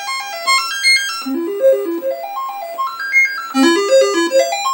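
Commodore 128's SID sound chip playing the diagnostic cartridge's sound test: quick runs of short bleeping notes climbing in steps, each run starting over about every two seconds. The sound test is working.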